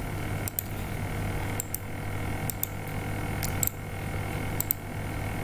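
Computer mouse clicking: about five pairs of sharp clicks, a second or so apart, over a steady low hum.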